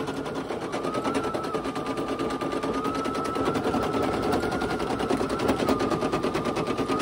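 Brother PE800 embroidery machine stitching: a noisy, rapid, even clatter of needle strokes over a steady motor whine that wavers slightly in pitch.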